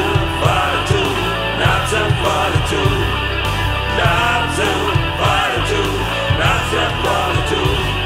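Heavy rock music: steady pounding drums and bass under a bending lead melody line.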